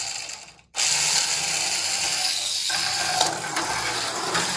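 Mini 4WD toy car with a front-mounted electric motor running along a plastic track: a steady whir of its motor and gears with some rattle. It breaks off briefly just under a second in, then carries on evenly.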